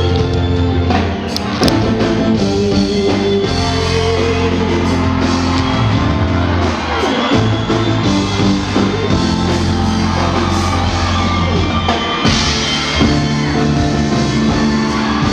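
Loud live band music: a deep bass line in long held notes, drums, guitar and a singing voice, heard from backstage.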